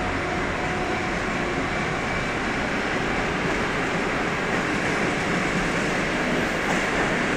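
Train rolling past on the rails, a steady, even rumble of wheel and running noise.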